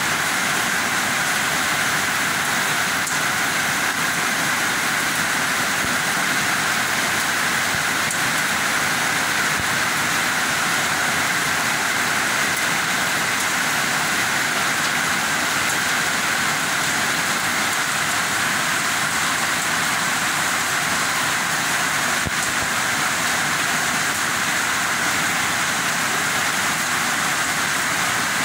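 Heavy rain pouring steadily onto grass, trees and flooded ground.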